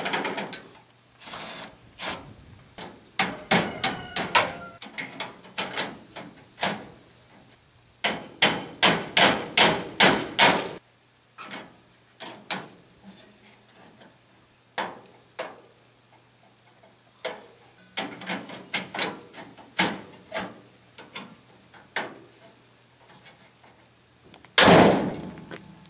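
Sharp metal taps in clusters, with a steady run of about two strikes a second in the middle: hammer work on a 1966 Chevy Biscayne's riveted-in front grille to straighten it. Near the end comes one heavy slam, the car's hood being closed.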